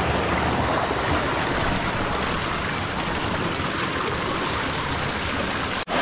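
Fast-flowing, shallow stream rushing steadily over rocks. It cuts out for an instant near the end.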